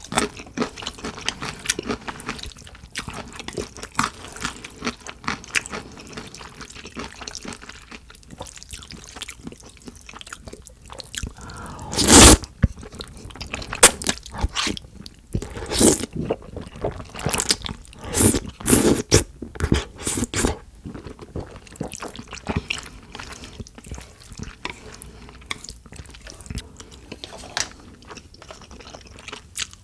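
Close-miked eating of jajangmyeon: chopsticks working through thick black bean sauce and noodles, then a big mouthful of noodles taken in and chewed with wet, sticky smacks. The loudest moment comes about twelve seconds in as the mouthful goes in, and a run of loud chews and smacks follows a few seconds later.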